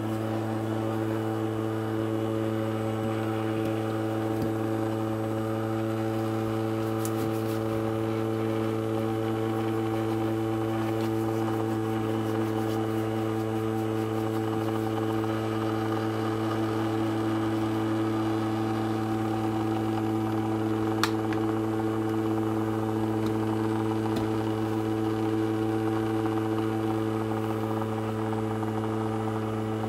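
Small ultrasonic cleaner running with coins in its water tank: a steady, even buzzing hum, with a single faint click about two-thirds of the way through.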